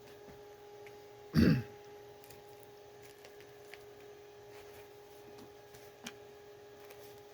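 A person clearing their throat once, short and loud, about a second and a half in, over a steady faint hum, with a few soft clicks later.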